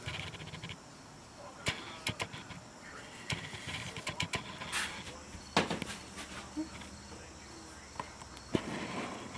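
Irregular light taps, clicks and scrapes of a paintbrush against a metal paint can and a plastic roller tray as yellow paint is poured and the brush loaded.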